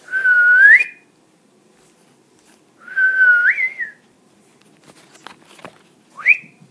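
A person whistling to call a kitten: three whistles, the first two held steady and lifting upward at the end, the last a short quick upward glide.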